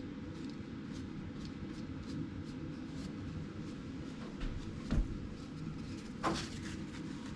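Two light knocks from handling a wooden tool chest, about five and six seconds in, over a steady low background noise.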